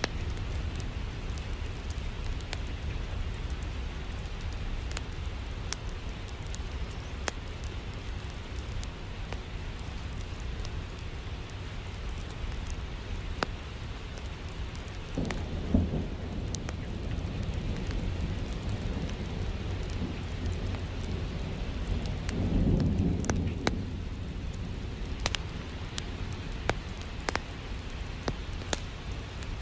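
Steady rain with scattered sharp crackles and ticks, and low thunder rumbling twice, about halfway through and again around three-quarters of the way in.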